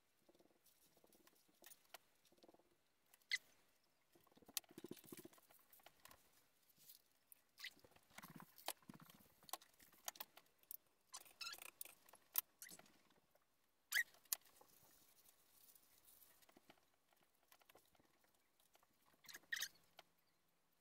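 Faint rustling and crinkling of leaves being folded and handled as a pinangat parcel is wrapped, with scattered light clicks and knocks from things set down on the counter, the sharpest a few seconds in and about two-thirds through.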